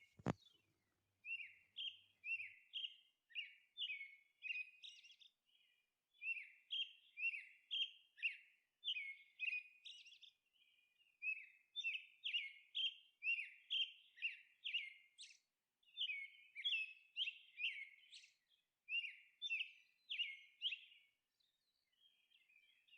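Small bird chirping: short, high, falling notes about two a second, in runs of a few seconds separated by brief pauses.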